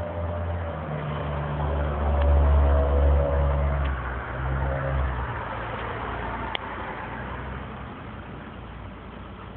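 A low engine hum, like a vehicle running close by, swelling for a few seconds and then fading away.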